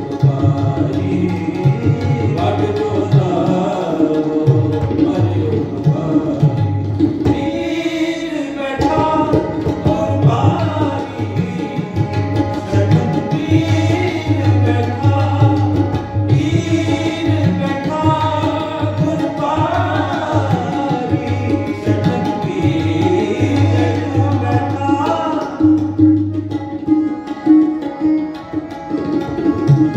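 Sikh kirtan: harmoniums and tabla playing a hymn, with voices singing it in phrases over the instruments.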